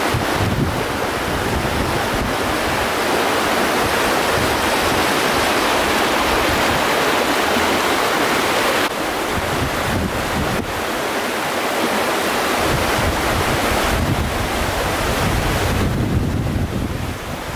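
Floodwater of the river Geul rushing and surging through the streets in a steady, loud roar of water, the sound shifting a little about nine seconds in and again near the end.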